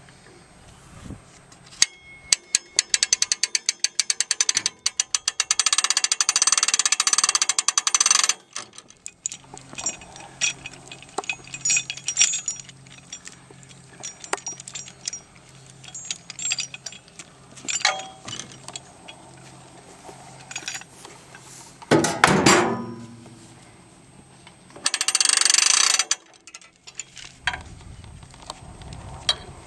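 Hand-crank strap winch ratcheting as it is cranked and the strap winds in, the pawl clicks coming faster until they run together. After that come scattered clicks and clinks of chain and hooks, a loud clank about 22 seconds in, and a brief rattling burst near the end.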